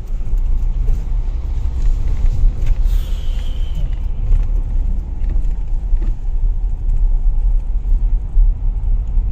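In-cabin rumble of a Mahindra Scorpio-N driving over a rough, broken mountain road: a steady low drone of engine and tyre noise.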